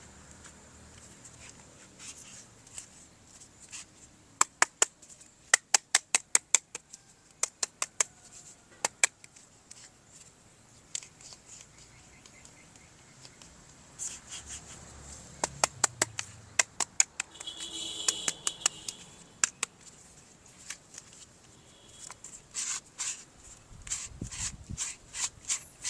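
Runs of quick, sharp plastic clicks and taps from toy parts being handled, with a short scrape about two-thirds of the way through.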